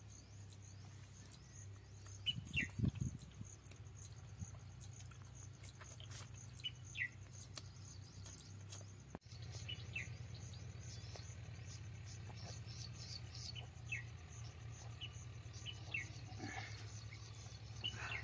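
Small birds chirping outdoors: short, falling chirps every second or two over a low, steady hum, with a few muffled bumps about three seconds in.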